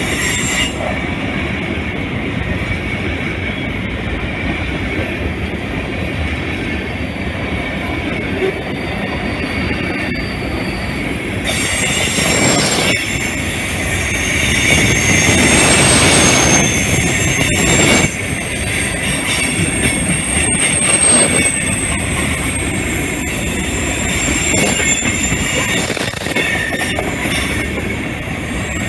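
Railroad tank cars rolling past close by: steel wheels rumbling on the rails, with thin high-pitched wheel squeal over the top. It grows louder for a few seconds around the middle and then drops back.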